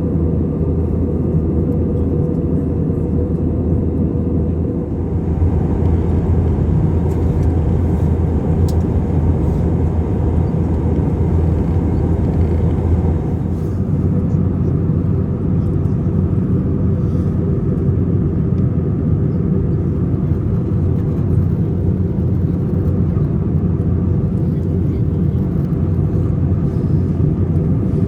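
Steady low rumble of an Airbus A320 in flight, heard inside the cabin: engine and airflow noise, its tone shifting slightly about five seconds in and again around thirteen seconds.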